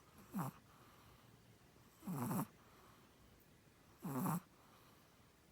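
A Chihuahua snoring in its sleep: three short snores about two seconds apart.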